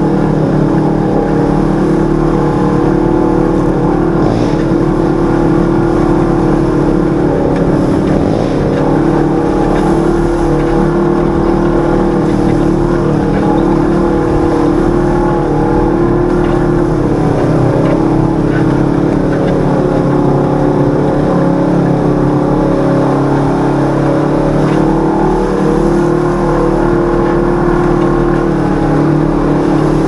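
On-board sound of a side-by-side UTV's 1000 cc parallel-twin engine running at a steady trail pace, its pitch easing up and down a little as the throttle changes.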